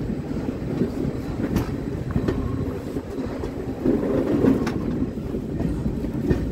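ICF passenger coach running on the rails, heard from an open doorway: a steady rumble of wheels on track with a few sharp clicks, swelling louder about four seconds in.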